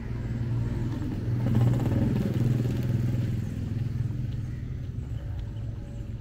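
A motor vehicle's engine running close by with a steady low hum, growing louder over the first two seconds and then slowly fading as it passes.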